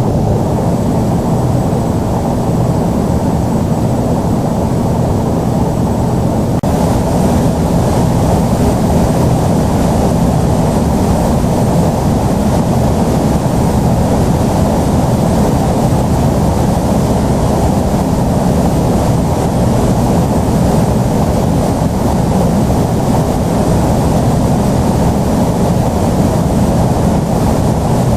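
Boeing 747 jet engines: a loud, steady rumble, with the higher hiss growing louder about six seconds in.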